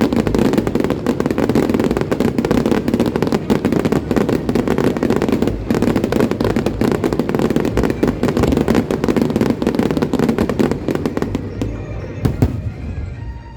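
Aerial fireworks in a dense barrage: many rapid, overlapping bangs and crackles over a continuous rumble, thinning out about twelve seconds in.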